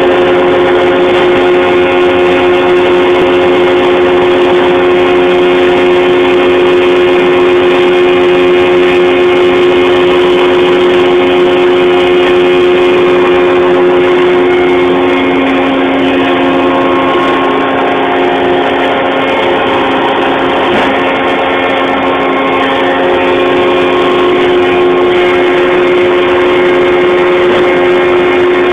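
Atlas Copco Boltec rock-bolting rig running with a loud, steady droning hum made of several held tones. A little past the middle its note drops lower for several seconds, then comes back up.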